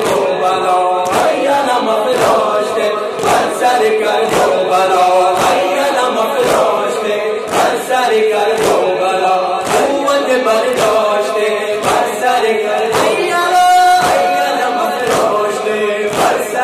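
A male reciter sings a noha, a Shia lament, through a microphone while a crowd of men chants along. Under the singing, hands strike chests in matam at a steady beat of about two strokes a second. Near the end the reciter holds one long note.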